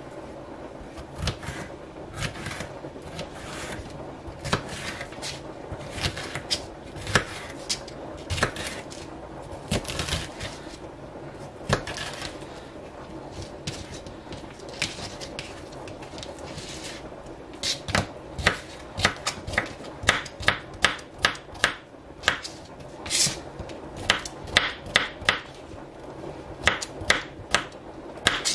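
Chef's knife cutting a green bell pepper on a plastic cutting mat: sharp knife taps on the board, irregular at first, then a steady run of about two cuts a second in the last third as the strips are diced.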